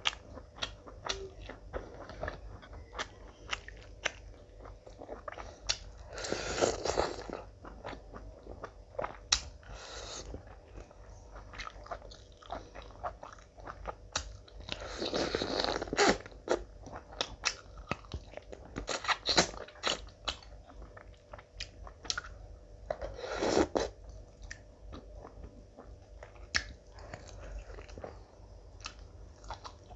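Close-miked mouth sounds of eating rice and curry by hand: steady chewing with many small wet clicks and smacks. Three louder stretches of a second or two come about eight seconds apart.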